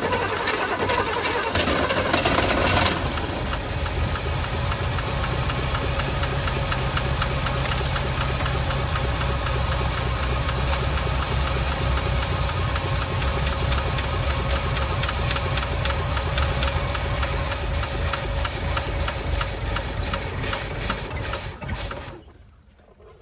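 1985 Chevy C10 truck engine running on fuel poured from a bottle into the carburetor. It keeps going for about twenty seconds, then dies near the end. The owner blames plentiful vacuum leaks for how it runs.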